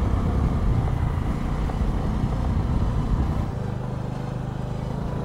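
Vehicle engine running steadily while driving, with road and wind noise. About three and a half seconds in, the engine note settles into a steadier, more even hum.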